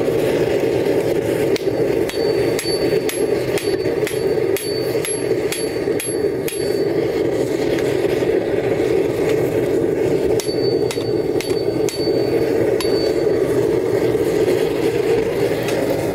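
Two runs of hammer blows on hot leaf-spring steel on a steel anvil, a few seconds each with a pause between, at about two to three blows a second; each blow rings with a high tone. Under them the forge gives a steady rushing noise.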